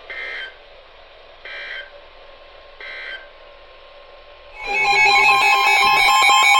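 Emergency Alert System end-of-message data bursts: three short, shrill bursts of digital data tones, about a second and a half apart, signalling the end of the warning. About four and a half seconds in, a much louder electronic sound of several tones, pulsing quickly, begins.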